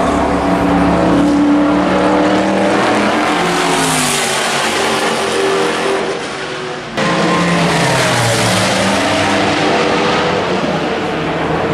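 Sports-prototype endurance race cars running at speed on the circuit, their engine notes rising and falling as they go by. About seven seconds in, the sound breaks off abruptly and another car's engine comes in, its pitch falling.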